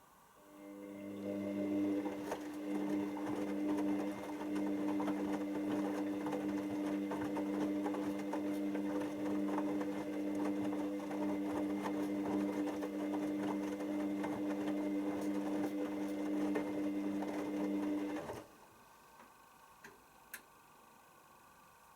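Hoover DYN7144XD1 washing machine running with a steady hum and rattle for about 18 seconds, then stopping abruptly.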